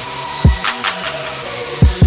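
Hip hop beat playing without vocals: two deep bass hits that drop in pitch, with short hi-hat ticks over sustained synth tones.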